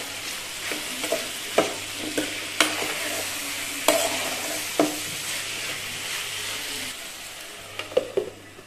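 Diced bottle gourd sizzling in hot oil in an aluminium pan while a steel spoon stirs it, with several sharp clinks of the spoon against the pan. Near the end a glass lid is set on the pan with a few clinks, covering the gourd to steam-cook.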